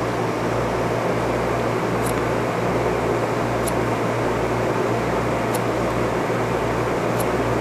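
Steady drone of a fan running close by, with a low hum under it. Four faint, short ticks come about every one and a half to two seconds as small Fiskars scissors snip matted fur.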